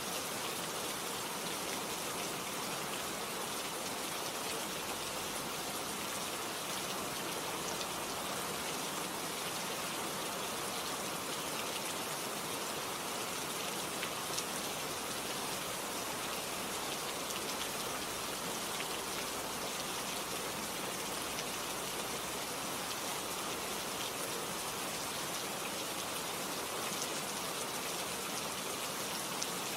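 Steady recorded rain: an even hiss of falling rain with faint scattered drop ticks, unchanging throughout.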